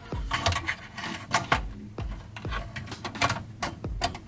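Computer parts being handled during assembly of a desktop PC: a run of irregular clicks, knocks and light rattles of metal and plastic, with a few low thumps.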